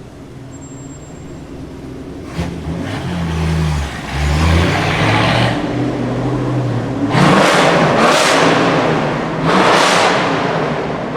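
Supercar engine accelerating through a tunnel, its note rising from about two seconds in with a brief dip near four seconds, then loud bursts of revving twice in the second half, with another starting at the very end.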